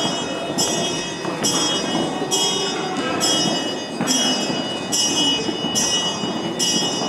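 A bell ringing in a steady rhythm, about eight strokes here, each a bright ringing tone that hangs on until the next, over the murmur of a crowd's voices.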